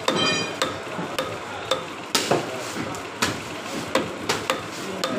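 Fish knife working a large black pomfret on a wooden chopping block: irregular sharp taps and scrapes of the blade against the fish and the block, a few to a second.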